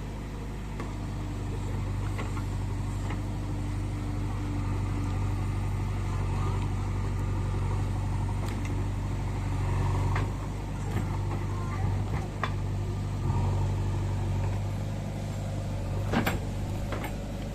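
Heavy diesel engine of earthmoving machinery running steadily, swelling and easing under load a few times, with a few sharp metallic knocks.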